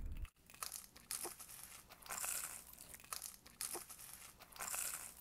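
Packaging crinkling and rustling in irregular bursts, with a few short sharp ticks between them.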